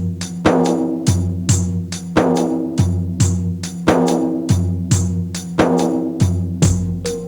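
Background music with a steady percussion beat over a sustained bass line.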